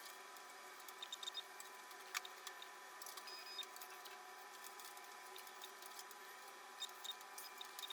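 Faint scattered clicks and small taps, a few close together about a second in and again near the end, over a low steady hiss with a thin steady tone.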